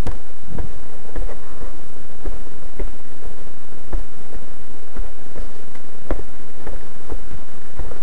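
Footsteps walking down a pebbled concrete walkway, about one to two steps a second, each with a dull thud picked up through the handheld camera.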